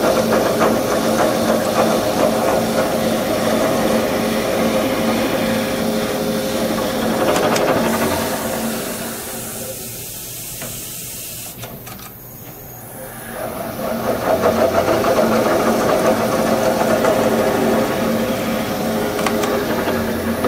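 Seat and guide machine's spindle motor running steadily as it drills out stripped stud holes in an aluminium Fiat 124 cylinder head. About eight seconds in the motor sound fades and a high hiss takes over for a few seconds. The motor comes back up at about fourteen seconds.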